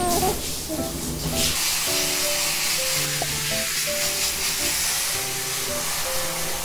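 Water spraying from a handheld shower head onto a cat and the bathtub, a steady hiss that grows louder about a second and a half in. Light background music with short plucked notes plays throughout.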